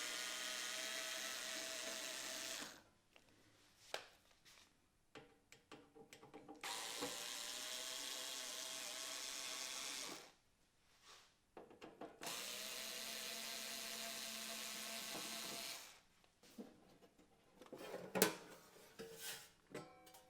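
Small electric screwdriver running in three steady bursts of about three seconds each, backing out the top-cover screws of a cassette deck. Light clicks and handling knocks fall between the bursts, with a cluster of louder knocks near the end.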